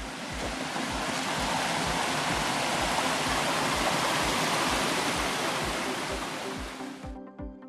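Brook water rushing and splashing over rocks: a steady, loud rush that cuts off suddenly about seven seconds in. Background music with a regular beat plays underneath.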